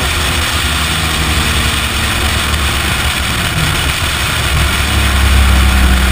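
Toyota Supra's 2JZ straight-six running at low, steady revs as the car rolls along, under a rush of wind over the side-mounted camera. The engine gets louder about two-thirds of the way through.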